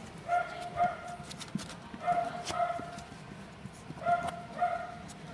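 Small puppy yapping: three pairs of short, high yaps, the pairs about two seconds apart.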